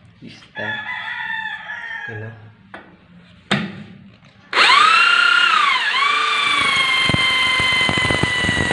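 Corded electric drill with a masonry bit starting up about halfway through and boring into a tiled concrete stair step. Its motor whine dips in pitch as the bit bites, then holds steady over a rough grinding as the bit cuts through tile and concrete. The hole is an anchor hole for a handrail post base. A single sharp knock comes just before the drill starts.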